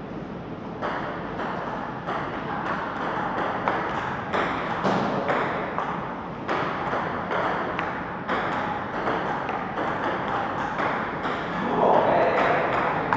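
Table tennis rally: a celluloid ball ticking off the paddles and the table, about two crisp clicks a second.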